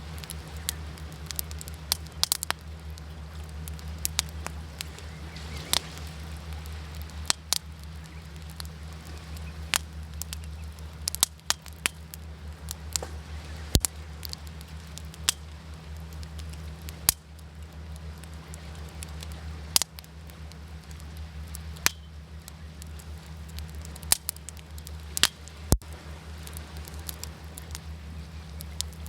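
Wood fire crackling, with irregular sharp pops and snaps scattered through it, over a steady low rumble.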